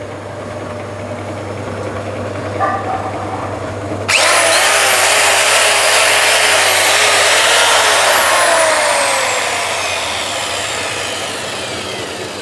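A steady low hum, then about four seconds in a power tool starts suddenly and runs loudly, its pitch wavering and slowly falling.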